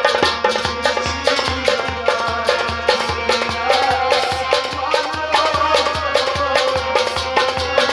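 Live Kashmiri folk music: a clay tumbaknari goblet drum beaten by hand in a steady quick rhythm under sustained harmonium chords, with a man singing from about halfway through.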